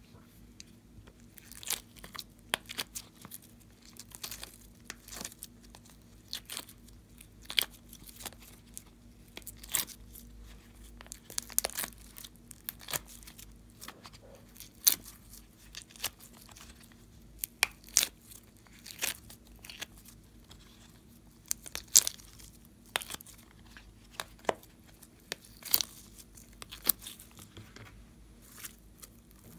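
Slime making sharp, irregular sticky pops and crackles, a few a second, as fingers press it and pull it out of a flexible butterfly mold.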